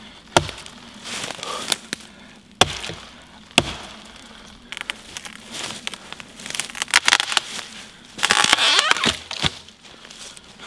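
Fiskars Norden N10 axe chopping into a standing dead tree: three sharp strikes in the first four seconds. Then a run of cracking and snapping wood, loudest about eight to nine seconds in, as the trunk breaks and the tree comes down.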